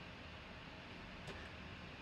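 Quiet room tone with a steady hiss, broken once by a faint, short click about a second and a half in.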